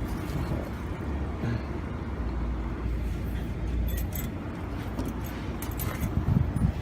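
Steady low rumble with scattered light clicks and a few dull knocks about six seconds in: hand work fitting a clutch cable into place.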